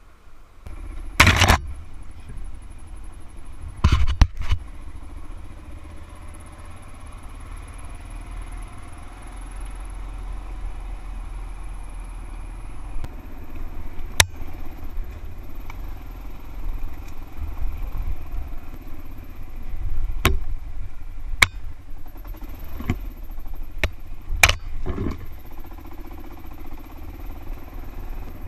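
Dual-sport motorcycle running along a dirt trail, with a steady engine rumble. Sharp knocks and clatters come several times along the way, the loudest two in the first few seconds.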